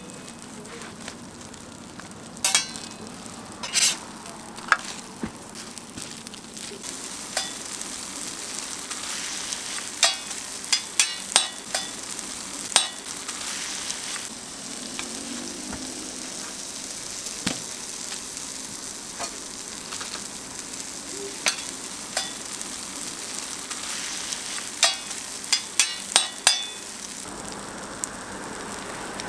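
Egg, ham and cheese sizzling steadily on a flat steel griddle, with sharp metal clicks of a spatula against the griddle now and then, several in quick succession about ten seconds in and again near the end.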